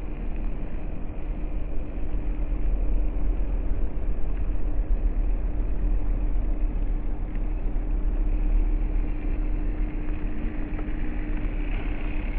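WPL C24 Toyota Hilux RC crawler's small electric motor and gearbox whining steadily at crawling speed over a low rumble. The whine fades shortly before the end.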